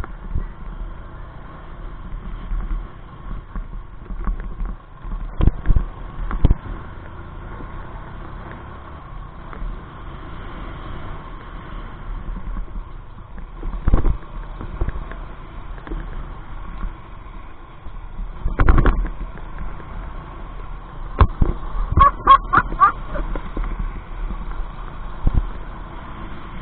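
Motorcycle riding over cobblestones, heard from a bike-mounted camera: a steady low run of engine and wind noise, broken by sharp knocks and rattles as the bike jolts over the stones. A short run of pitched notes comes about 22 seconds in.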